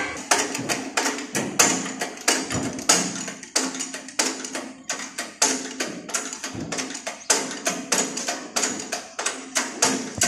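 Rapid sharp knocks or taps, about three a second, in a steady, even run.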